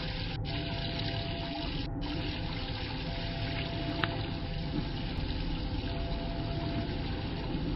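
A steady rushing, trickling water-like sound, with a faint held tone that comes and goes every couple of seconds and a single small click about four seconds in.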